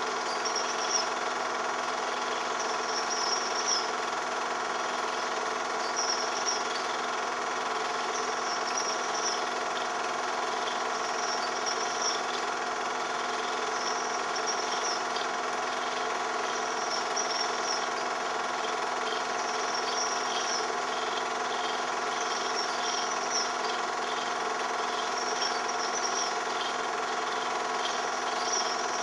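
Home-movie film projector running steadily: an even motor-and-mechanism whirr with many fixed tones, plus a faint high chirp every second or two.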